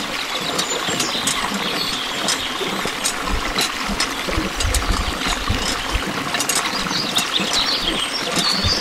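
Thin stream of water from a miniature hand pump splashing into a small water-filled basin, with many light clicks and knocks from the pump handle being worked.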